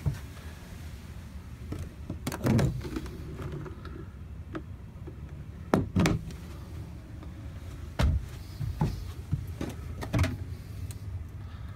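Wooden cabinet door being handled: a series of knocks and clicks from the door and its latch, spread a few seconds apart, the loudest about halfway through, over a steady low rumble.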